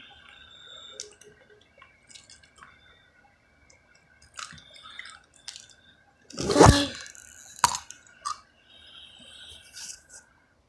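Close-up handling noise from a phone: scattered small clicks, taps and rustles, with one loud bump about six and a half seconds in.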